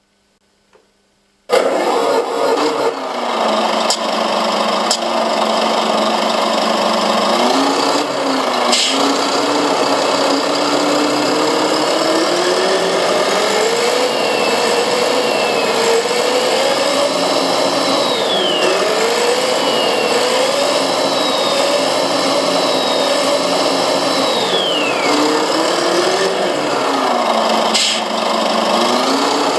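Synthesized RC-truck engine sound from a Servonaut SM7 sound module, played through a loudspeaker. It cuts in suddenly about a second and a half in and runs steadily, the revs climbing slowly and dropping back several times, with a high whistle rising and falling in the middle stretch and a few sharp clicks.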